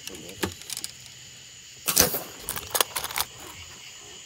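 Sharp clicks and jingling rattles of gear being handled, a few in the first second and a denser cluster about two seconds in, over a steady high chirring of night insects.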